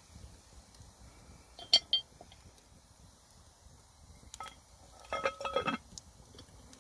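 Metal cookware clinking: two sharp ringing clinks about two seconds in, then a quick rattling run of clinks near the end.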